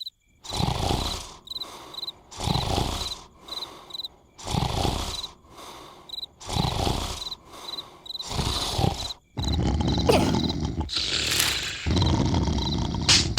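Cartoon snoring sound effect: loud, rasping snores that come about every two seconds, running together more continuously in the last few seconds. High cricket chirps repeat in the background.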